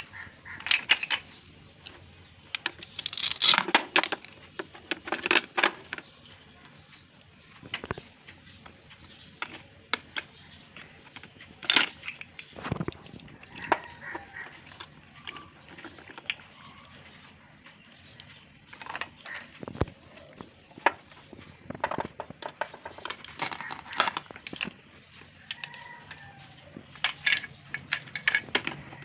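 Plastic toy fruit and vegetable pieces being handled and cut apart: scattered sharp clicks, knocks and crackles of plastic, some coming in quick clusters.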